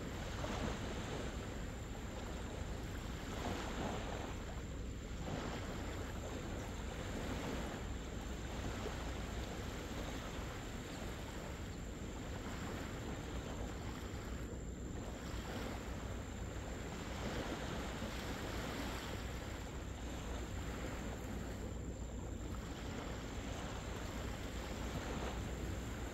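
Wind blowing across the microphone with small surf washing onto the beach. A steady low rumble rises and falls in slow swells every few seconds.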